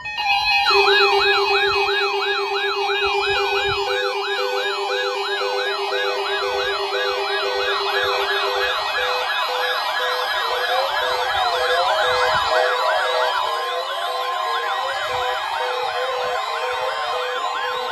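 Electronic alarm and siren tones: fast warbling siren sweeps over a steady alarm tone and a lower steady tone. The low tone stops about halfway through, and from then on more sweeps at different speeds pile in and overlap.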